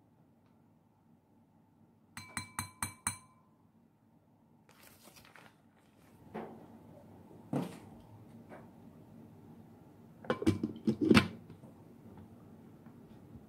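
Food prep on a glass food-processor jar: a quick run of ringing clinks of a utensil tapped against the glass, a soft pour of powder, then a few knocks and a louder cluster of clunks near the end as the hard plastic motor top is set onto the glass jar.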